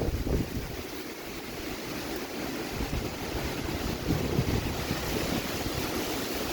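Outdoor wind-and-water ambience: a steady rushing noise with irregular low gusts buffeting the microphone.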